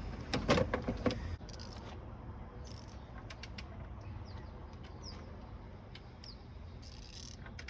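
Sharp metallic clicks from the BMW M52 inline-six being turned over by hand with a wrench toward top dead center: a quick cluster in the first second and a few more about three seconds in. After that comes a low steady hum with faint bird chirps.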